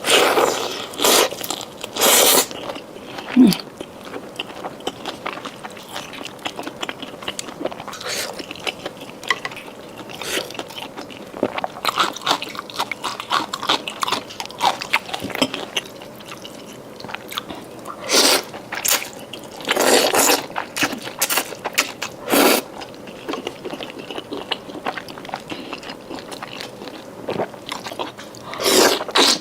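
A person biting into and chewing fried chicken close to the microphone, with many small wet mouth clicks throughout and a handful of louder bites spread across the stretch.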